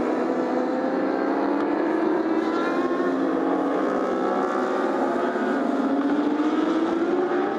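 Several endurance racing motorcycles running at high revs through a corner. Their overlapping engine notes slide up and down in pitch as the riders shift and get back on the throttle, and one rises near the end.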